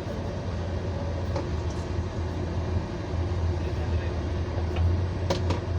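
Hyundai 1250-9 excavator's diesel engine running under load with a steady low drone as the bucket is worked, with two short sharp clanks near the end.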